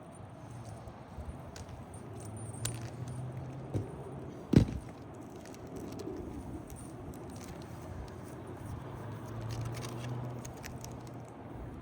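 Hand-tool work on an asphalt shingle roof while a damaged shingle's nails are pried loose: scattered light clicks and scrapes, with one sharp knock about four and a half seconds in, the loudest sound.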